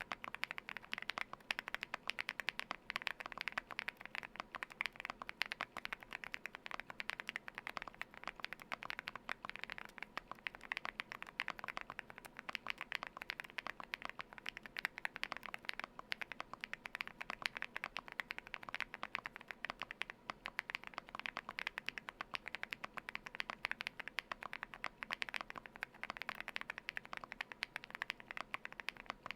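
Continuous fast typing on a Galaxy80 mechanical keyboard with lubed Wuque Studio Light Tactile switches, tape-modded and foam-dampened: a dense, steady stream of keystroke clicks.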